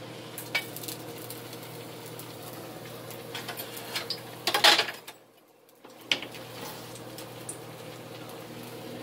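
Silicone spatula stirring sliced onions and bell peppers in a hot oiled nonstick frying pan: scraping and a few sharp knocks against the pan, the loudest cluster about halfway through, over a steady hum. The sound drops out briefly just after the knocks.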